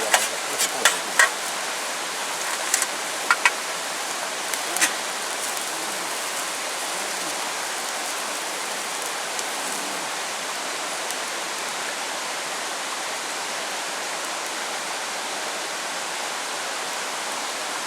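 Steady rushing water noise, with a few sharp ticks in the first five seconds.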